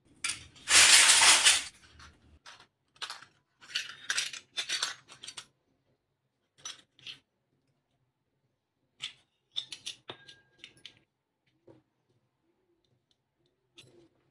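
Miniature stainless-steel toy plates set down on a hard surface one after another, with small clinks and scrapes and, about ten seconds in, a short ringing note from one plate. A louder rough scrape or rustle comes about a second in.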